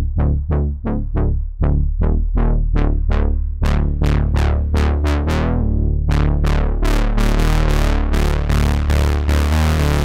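Cherry Audio Mercury-6 software synthesizer, an emulation of the Roland Jupiter-6, playing a brass preset. It plays a run of short stabs, each starting bright and closing quickly, over a steady low bass. The notes come faster and run together from about six seconds in.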